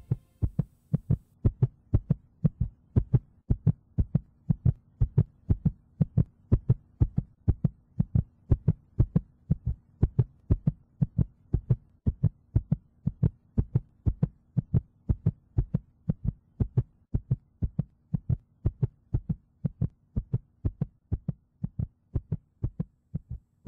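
Heartbeat-like low pulse beating steadily about twice a second over a low hum, a rhythmic interlude in an electronic music track.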